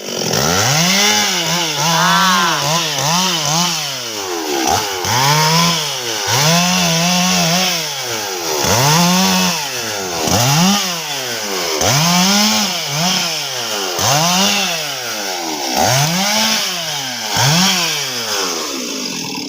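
Stihl MS 261 two-stroke chainsaw being revved over and over: the engine pitch climbs to full throttle and drops back toward idle about a dozen times, each rev lasting a second or two.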